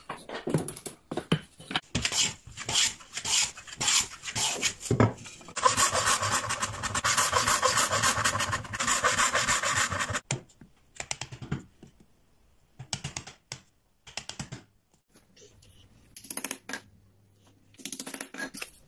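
Hand saw cutting finger-joint slots into a wooden board clamped in a bench vice: short separate strokes at first, then a few seconds of fast continuous sawing. After that come only scattered light wooden knocks and scrapes as the cut pieces are handled and fitted together.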